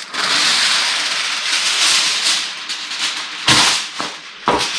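Aluminum foil being pulled off its roll with a continuous crackling rustle. Two sharper, louder crackles come near the end as the sheet is handled and torn off.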